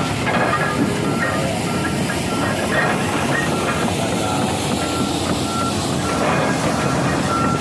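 Excavator engine running under load with its travel alarm beeping, a single-pitch beep repeating about twice a second, regular from about four seconds in.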